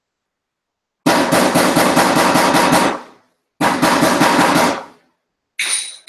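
Rapid banging in two bursts, about six sharp blows a second: the first lasts about two seconds, the second about one. Near the end comes a short metallic clink with a ringing tone.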